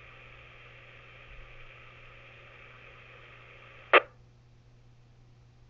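Ham radio speaker carrying the 147.105 repeater's carrier after a transmission: a steady hiss that ends about four seconds in with a short burst of squelch tail as the repeater drops off the air and the receiver mutes.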